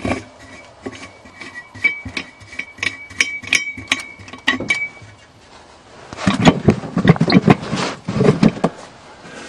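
Squeaky metal-on-metal turning with repeated small clicks at the air cleaner of a 1977 GMC truck, the lid's centre wing nut being worked loose. About six seconds in this gives way to louder clattering and rustling as the air cleaner is handled.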